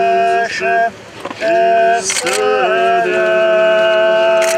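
A choir singing a church hymn in sustained chords: several voices hold long notes together and change pitch in steps, with a short break about a second in.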